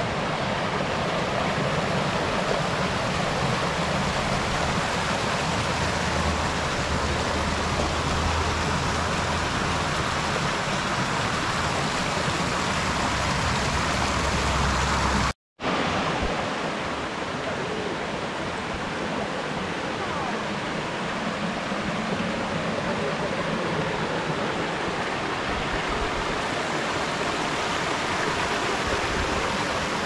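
Mountain stream cascading over rocks: a steady, full rush of water, broken once by a brief dropout about halfway through.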